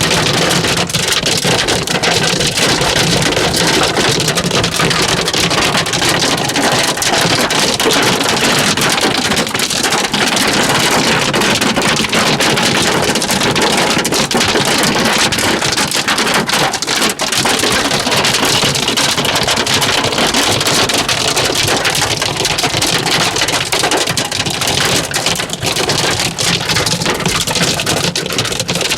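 Hail pelting down hard in a storm: a loud, dense, steady clatter of countless small stones striking surfaces.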